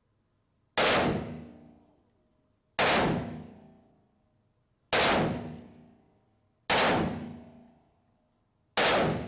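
Five identical metallic clangs, evenly spaced about two seconds apart, each striking suddenly and ringing out for about a second, with dead silence between them: a repeated sound effect.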